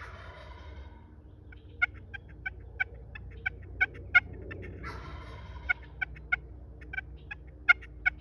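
Wild turkeys calling: a string of short, sharp clucks at irregular intervals, with a rough, rattling gobble at the start and another about five seconds in.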